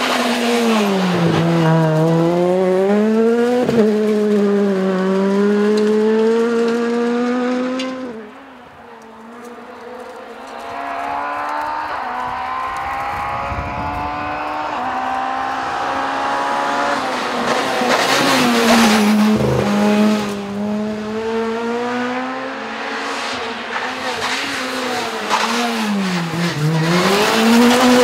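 Rally cars driven hard on a stage: engines revving high, with the pitch dropping and climbing again through gear changes and lifts. The sound fades about eight seconds in as one car goes away, then another car is heard building revs as it approaches and runs past.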